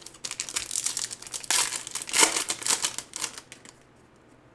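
Trading-card pack wrapper being torn open and crinkled in the hands: a dense run of crackling that stops about three and a half seconds in.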